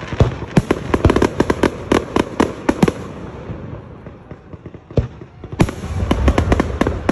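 Aerial fireworks display: a rapid series of sharp pops and bangs from bursting shells that thins out about halfway through, a lone bang at about five seconds, then a dense volley of booms and crackles with a deep rumble near the end.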